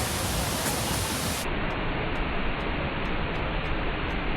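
Steady rush of heavy water falling at a large waterfall running full in the monsoon. About a second and a half in the sound turns slightly duller as its highest hiss drops away.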